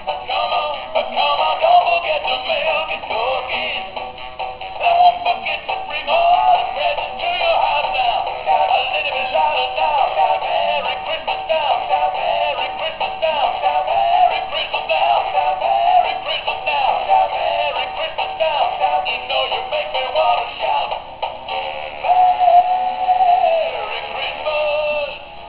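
Animated plush singing-dog toy playing a Christmas song through its small built-in speaker: a synthetic, thin-sounding recorded voice with musical backing and almost no bass. The song ends near the end.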